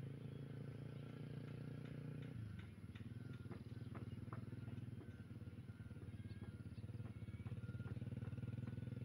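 A faint, steady engine hum that shifts in pitch about two seconds in, with scattered short clicks and chirps over it.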